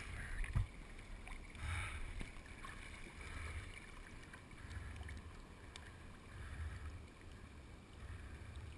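Water sloshing and lapping against a waterproof action-camera housing held at the river surface, muffled by the housing, swelling in soft low pulses about every second and a half as the swimmer moves through the water.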